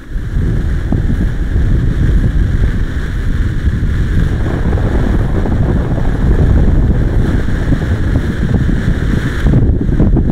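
Wind buffeting the action camera's microphone: a loud, steady low rumble.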